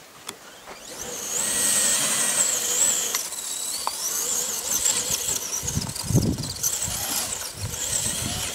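Radio-controlled truck's electric motor whining under load as it climbs a steep sand slope, the high pitch rising and falling with the throttle, starting about a second in.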